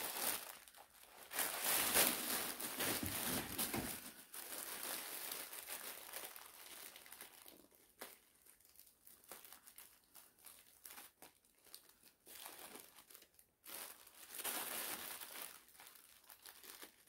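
Tissue paper crinkling and rustling as it is unwrapped from a folded T-shirt, loudest in the first few seconds and again near the end, with quieter handling between.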